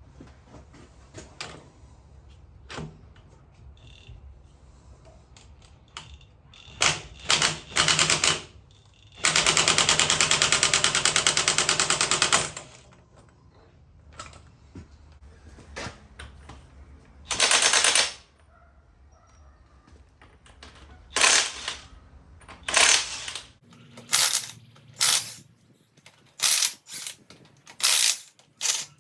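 Power impact wrench hammering nuts and bolts loose in short bursts: one long burst of about three seconds around ten seconds in, others at about 7, 17 and 21–23 seconds, and a quick run of short bursts near the end. A low steady hum in the background stops about 24 seconds in.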